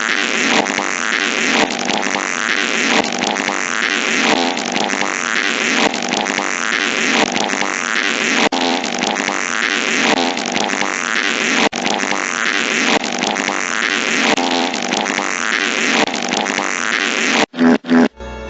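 Fart noises made into a microphone, harsh and continuous, with a rough pattern that repeats about every second and a half and a few abrupt cut-outs near the end.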